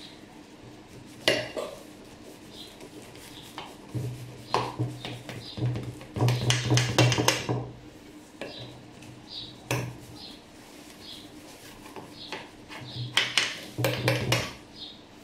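A long kitchen knife cutting down through layered phyllo baklava rolls in a metal baking tray, the blade knocking and scraping against the tray bottom in irregular clicks and clatters, busiest in the middle and again near the end.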